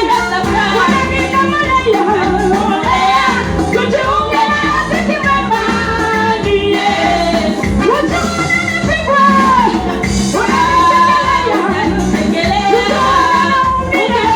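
A school choir singing a gospel song over instrumental backing.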